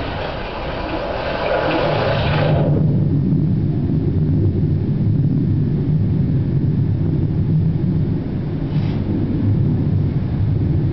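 Rushing water from a film soundtrack played over auditorium speakers, cutting off suddenly about two and a half seconds in and leaving a steady low rumble.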